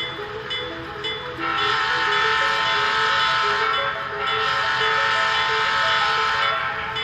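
An HO scale model locomotive's ESU LokSound Select sound decoder sounds its Leslie S5TRF five-chime air horn sample in two long blasts. The first starts about a second and a half in, there is a short break about four seconds in, and the horn stops shortly before the end.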